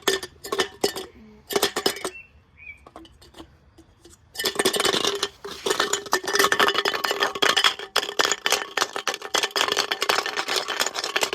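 Stones knocking and clattering inside a washing machine drum. A few separate knocks at first, then about four seconds in a dense, continuous rattle with a steady hum underneath as the drum turns.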